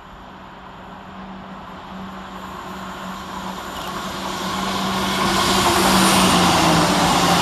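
ScotRail Class 170 Turbostar diesel multiple unit approaching and running through the station at speed without stopping. A steady engine hum and a rushing of wheels on rail grow from faint to loud. The hum drops in pitch near the end as the train passes.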